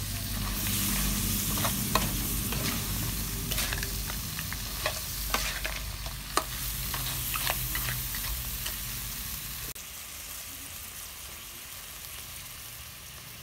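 Crabs stir-frying in a steel wok: a metal spatula scrapes and clinks against the pan over a steady sizzle. After about ten seconds the stirring stops and only a quieter sizzle remains.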